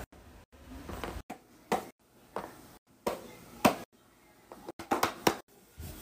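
A series of short taps and soft slaps, about one or two a second, as silicone pop-it fidget toys are handled and set down on a flat board, broken by a few abrupt cuts.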